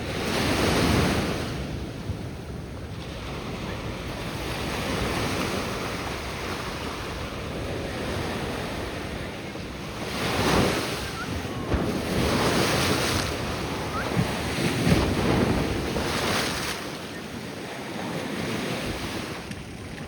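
Ocean surf breaking and washing ashore, swelling in several surges, with wind buffeting the microphone.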